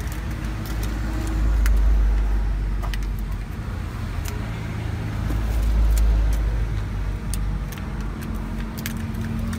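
Low rumble of passing road traffic that swells twice, with scattered sharp plastic clicks as snap-on lids are pressed onto plastic drink cups.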